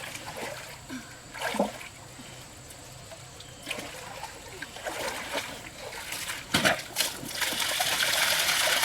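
Water splashing and trickling in shallow pond water, in scattered splashes that thicken into steadier splashing near the end.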